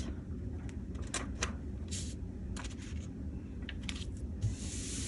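Paper cutouts being handled on a craft table: scattered soft rustles, brushing swipes and light taps, with spaces between them.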